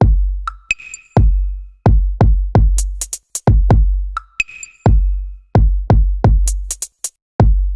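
Electronic drum-machine beat: deep, booming kick drums that drop in pitch, a snare hit twice, and sharp hi-hat ticks.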